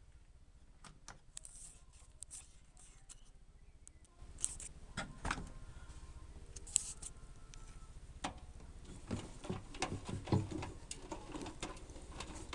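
Zanussi FL522-CN front-loading washing machine: after a few quiet seconds with scattered clicks, the drum motor starts with a low hum about four seconds in and the drum turns. Clothes drop inside it with a run of knocks and light rattles, thickest toward the end.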